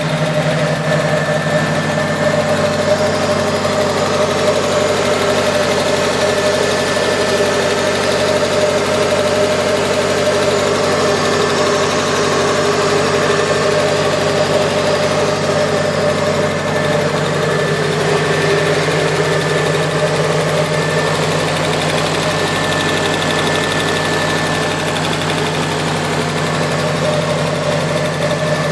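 Nissan KA24DE 2.4-litre four-cylinder engine idling steadily with a ticking noise that appeared after a head gasket replacement. The owner is unsure whether it is lifter tick or something more serious.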